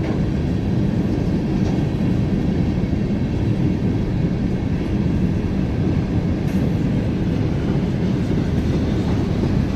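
Freight train cars rolling past, a steady loud rumble of steel wheels on the rails.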